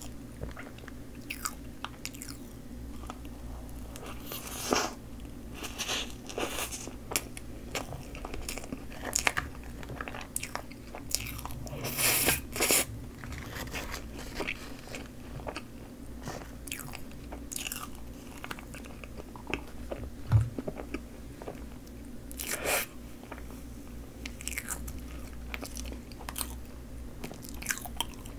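Close-miked eating of Choco Pie dipped in whipped cream: chewing with irregular mouth clicks and smacks, a louder cluster of them about twelve seconds in. A single dull thump comes about twenty seconds in.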